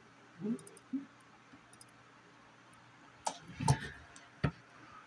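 Handling clicks and knocks: two soft low thumps near the start, then a few sharp clicks and taps later on, the loudest about two-thirds of the way through.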